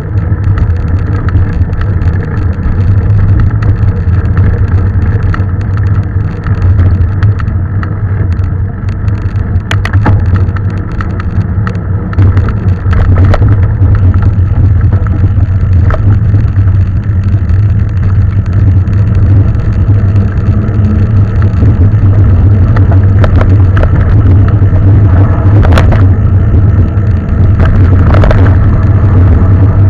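Mountain bike ridden over a trail: a loud steady rumble with scattered sharp clicks and rattles from the bike.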